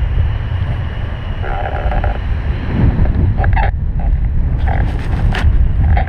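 Wind rushing over the microphone of a paraglider's camera in flight: a steady low rumble, with a few short crackles in the second half.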